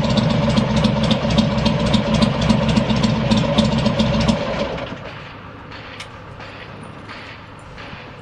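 Buell XB9R Firebolt's air-cooled V-twin idling evenly with a regular light clatter, then shut off about four and a half seconds in. Only a faint background with a few scattered clicks is left after that.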